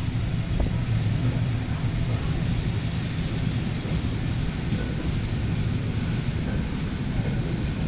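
Freight train of sliding-wall covered wagons rolling past, a steady low rumble of steel wheels on the rails.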